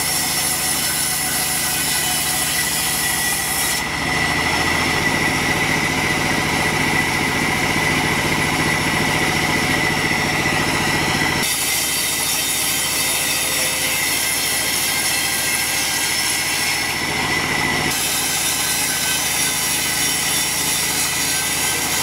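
Vertical band sawmill running, its blade ripping lengthwise through a log being fed along the table, with a steady high whine over the cutting noise. The sound changes character about four seconds in and again around twelve seconds.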